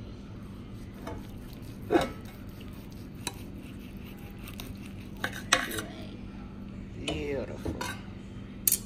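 Knife slicing a cooked ribeye steak in a metal roasting pan, the blade clicking and scraping against the pan several times, most sharply about two seconds in and again around five and a half seconds.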